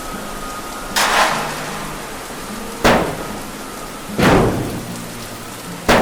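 Steady rain with four loud, sudden cracks that each fade quickly, like thunderclaps.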